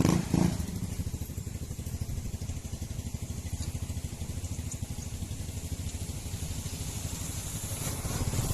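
Motorcycle engine running steadily, its rapid even firing pulses low and continuous, with two short louder sounds right at the start.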